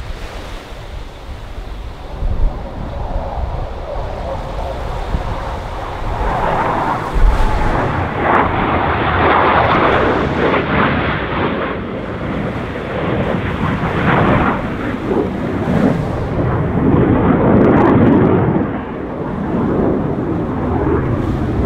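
Blue Angels F/A-18 Super Hornet fighter jets flying past low, their twin jet engines building from a few seconds in to a loud, rumbling noise that swells and eases several times as the jets go by.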